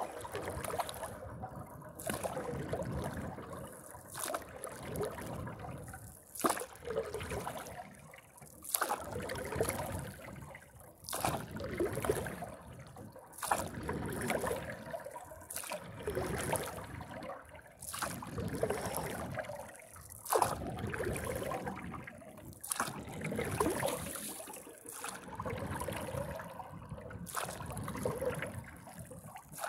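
Single-blade paddle strokes in lake water from a kneeling paddler on a paddleboard, about one every two and a quarter seconds. Each stroke is a short sharp click as the blade catches, followed by a swish of water along the board.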